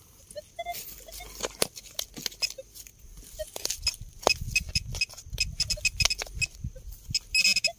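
Digging and scraping in soil at a small hole, with many short sharp clicks and crunches of dirt and stones. Near the end a metal detector's steady high tone starts sounding over the target, the buried coin.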